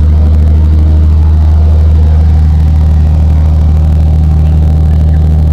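Cirrus SR22's six-cylinder piston engine and propeller heard from inside the cabin, running at low power as the plane taxis after landing. It makes a steady, loud, low drone.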